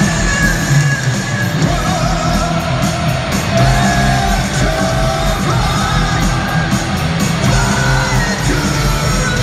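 Heavy metal band playing live: a male lead voice sings long held notes over drums, electric guitars and bass.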